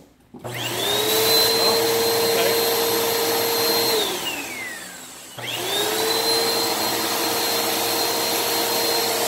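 Bissell PowerForce Helix 2191 bagless upright vacuum cleaner switched on. Its motor spins up with a rising whine and runs steadily, is switched off about four seconds in and winds down with a falling whine, then is switched back on about a second later and spins up again.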